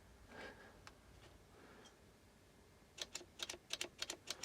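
Quiet, then about three seconds in a quick, slightly uneven run of light clicks starts, around five or six a second.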